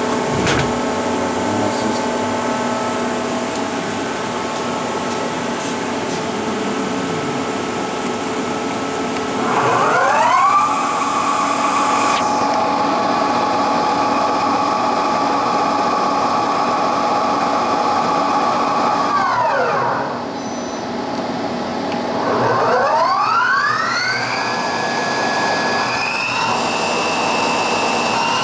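CNC lathe spindle with a collet chuck, on a 1997 Bridgeport Powerpath 15, over a steady machine hum: about nine seconds in it spins up with a rising whine, runs at a steady pitch for about ten seconds and winds down, then spins up again, stepping to a higher speed near the end.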